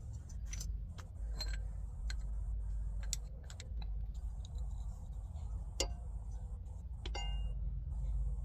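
Scattered light metal clicks and clinks from a bottle jack and a wheel being set in place, with one short ringing clink about seven seconds in, over a steady low hum.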